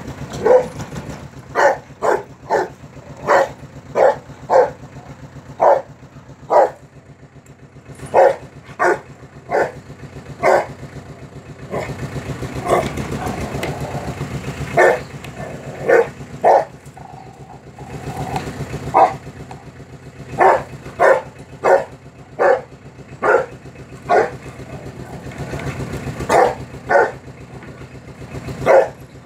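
Rottweiler barking angrily in short, sharp single barks at uneven intervals, sometimes in quick runs of two or three, over a low steady rumble.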